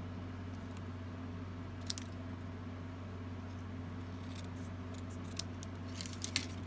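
Small scissors snipping through white cardstock: a single snip about two seconds in, then a run of quick snips over the last couple of seconds.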